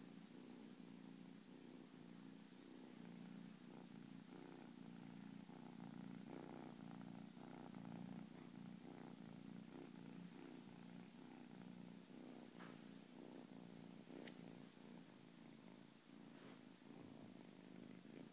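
Young Scottish Fold kitten purring steadily and quietly, with a couple of faint clicks in the second half.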